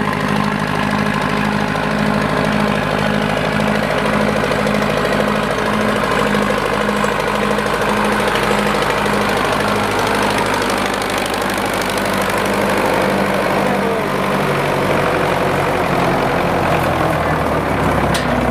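Belarus tractor's four-cylinder diesel engine running steadily under load as it hauls a loaded trailer along a rutted mud track. The engine note deepens near the end as the tractor comes alongside.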